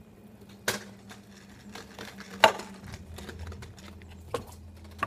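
Stunt scooter riding on wet tarmac: four sharp clacks, the loudest about two and a half seconds in, with a low rolling rumble from about three seconds in.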